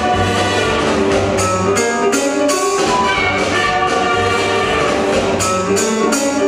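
Loud instrumental music: held notes over a rhythmic beat.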